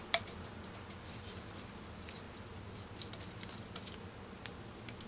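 Small plastic clicks and ticks from a side marker light and its spring-loaded retaining clip being handled. One sharp click comes just after the start, then scattered faint ticks.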